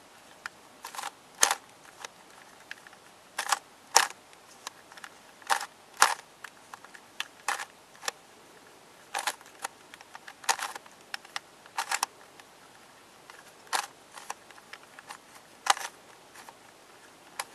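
Plastic Helicopter Cube puzzle being twisted by hand: sharp clicks from the pieces as its edges are turned, coming singly or in small clusters every second or so.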